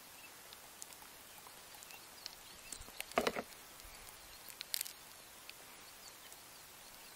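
Quiet outdoor background hiss with a few short clicks and knocks. The loudest is a quick run of knocks about three seconds in, with a smaller cluster a little before five seconds.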